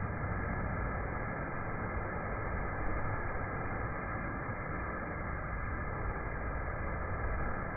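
Sun Joe pressure washer running steadily: a constant noisy hum that holds level throughout.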